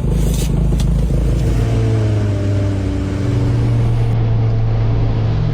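Engine of a snow vehicle running steadily under way, a low drone whose pitch drifts slightly as it drives.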